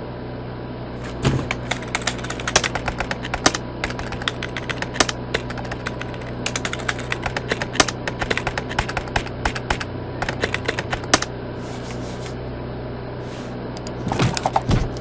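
Typing on a computer keyboard: a quick, irregular clatter of keystrokes starting about a second in, thinning out after about eleven seconds.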